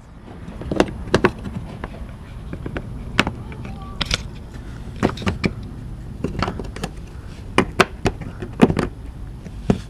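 Irregular sharp plastic clicks and taps, about a dozen, as a Volkswagen MK6 GTI side marker housing is pressed and worked back into its slot in the fender.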